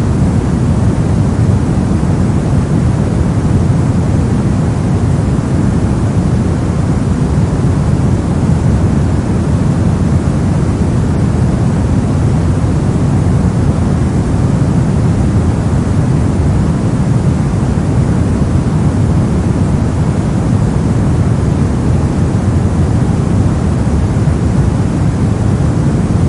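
Steady synthetic low, soft noise, weighted toward the bass like brown noise, with no changes or separate events.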